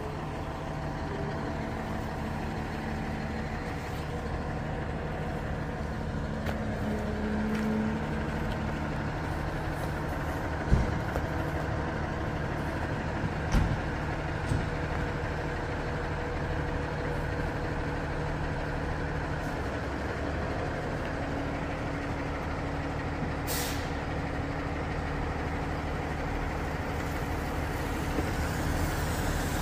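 Fire pumper truck's diesel engine idling steadily, with two knocks about eleven and fourteen seconds in and a short air-brake hiss a little before the last quarter.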